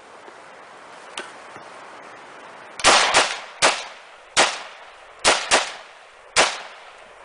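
IMI Tavor TAR-21 rifle in 5.56 NATO firing seven shots in quick, uneven succession, starting about three seconds in, each shot followed by a short echo.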